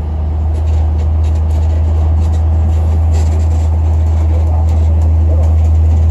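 Danubi road train carriage running along a road, heard from inside: a steady low drone of engine and rolling noise that gets louder right at the start and then holds.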